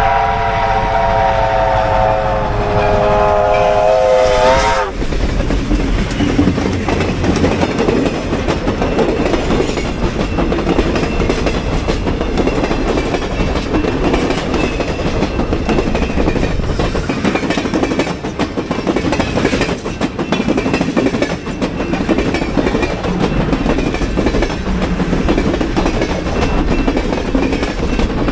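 A passenger train passing close by at a level crossing: a long, loud chord blast from the locomotive for about the first five seconds, bending slightly up in pitch as it cuts off, then the passenger cars rolling past with a steady rumble and the clickety-clack of wheels over the rail joints.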